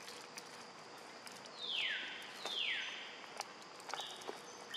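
A macaque's shrill cries: two short calls about a second apart, each falling in pitch, then a fainter one near the end, over a few light clicks.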